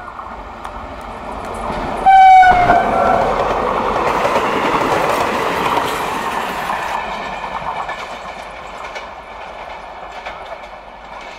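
Electric locomotive of a fast passenger train sounding its horn once, for about a second, around two seconds in, its pitch sliding slightly down as it passes. The rush of wheels on rail swells as the train goes by and then fades, with clicks of wheels over rail joints as it draws away.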